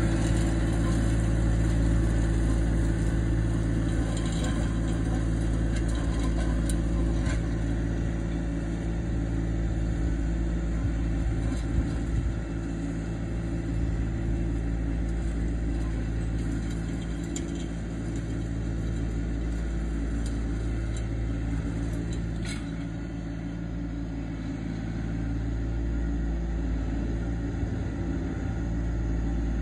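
John Deere 2025R compact tractor's three-cylinder diesel running steadily under load while dragging a landscape rake through loose dirt, with a few sharp clicks.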